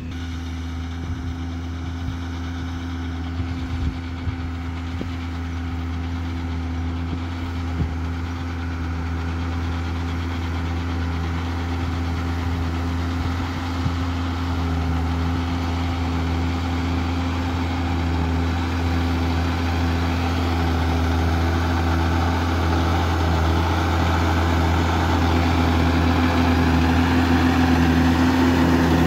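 John Deere 6210R tractor's six-cylinder diesel engine running at a steady pitch while pulling a plough, growing steadily louder as the tractor comes closer.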